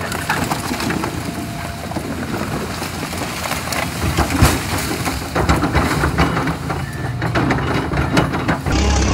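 Excavator engine running as its bucket crushes a car, with repeated crunching, cracking and knocking of the car's metal body. Near the end the sound switches abruptly to a steady low hum.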